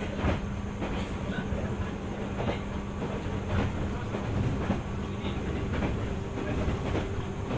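JR 205 series 600-subseries electric train running along the track, its wheels clicking over rail joints every second or so above a steady rumble and low hum.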